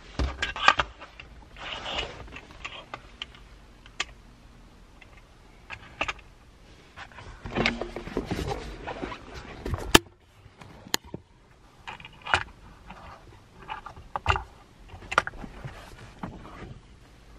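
Handling noise: scattered light clicks and knocks, with short stretches of rustling, as plastic parts and the camera are moved about.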